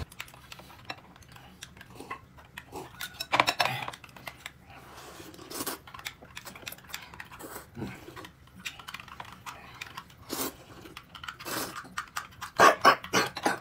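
Eating sounds at a meal table: irregular chewing and mouth noises with light clicks and clinks of cutlery on dishes, in short uneven bursts.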